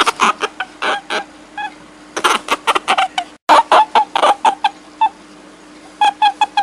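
A rapid, irregular series of short, pitched animal calls, several a second, over a faint steady hum. The sound drops out completely for an instant about three and a half seconds in.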